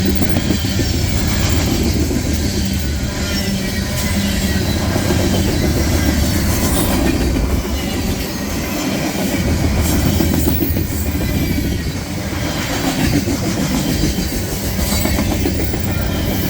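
Freight train passing on the near track: a steady loud rumble of rolling cars, with the wheels clicking over rail joints.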